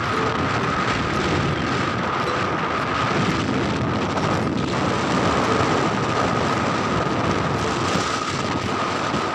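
Strong wind buffeting a phone microphone: a loud, steady rush over small waves washing onto the beach, with a thin steady high tone underneath.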